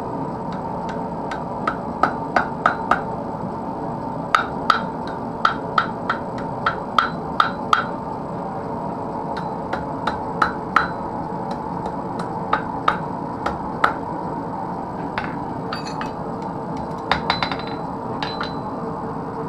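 Blacksmith's hammer striking a bracelet on the anvil in runs of quick, ringing taps, about two or three a second with short pauses, and a last cluster near the end. A steady hum of forge noise runs underneath.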